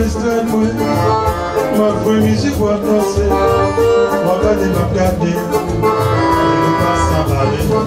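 Electric guitar played live over a backing track with a steady beat.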